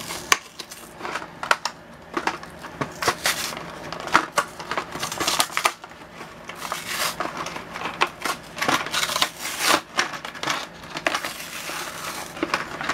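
Cardboard-and-plastic blister packaging being torn and peeled open by hand: an irregular run of rips, crinkles and snaps.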